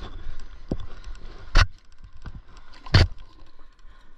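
Handling noises on an inflatable paddleboard as a landed olive flounder and a metal clip fish stringer are dealt with: light clicks and rustling, with two sharp knocks about a second and a half apart.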